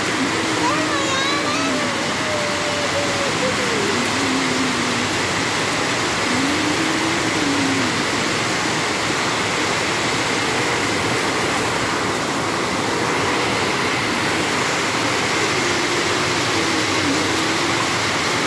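Heavy rain falling steadily on palm fronds and tiled surfaces: a dense, even hiss that does not let up.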